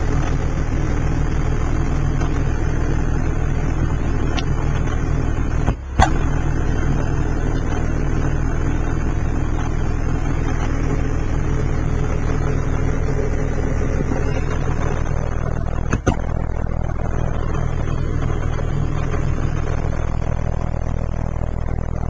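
Acoustic Elegance AV12.1 12-inch subwoofer playing a loud, steady low bass tone at high cone excursion, a deep drone with buzzy overtones. The sound dips and clicks briefly about six seconds in and again about sixteen seconds in.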